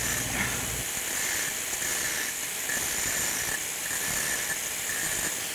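Angle grinder with an abrasive disc grinding at a tack weld on carbon steel pipe: a steady, hissing grind. A lower hum drops away about a second in.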